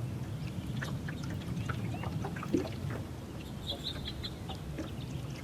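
Birds chirping and calling, with a quick run of repeated high chirps about four seconds in, over a steady low rumble of wind.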